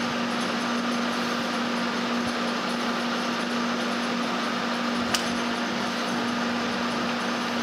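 Metal lathe running steadily during single-point thread cutting, with a constant hum, and a single sharp click about five seconds in.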